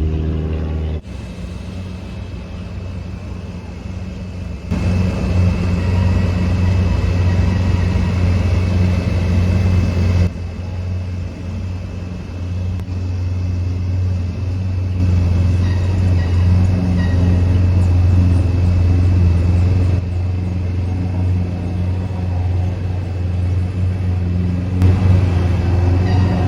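A motor vehicle's engine running with a steady low rumble, its loudness jumping abruptly several times.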